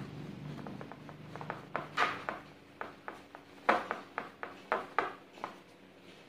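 Wire whisk beating thin cake batter in a bowl, the wires knocking against the bowl's side in an irregular run of sharp clicks, loudest about two seconds in and again between three and a half and five seconds in. The batter is being whisked until it is free of lumps.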